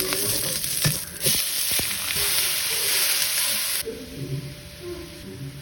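Food frying and sizzling in hot oil in a pan, with a few sharp clicks of a utensil. The sizzle swells louder about a second in and drops back about four seconds in.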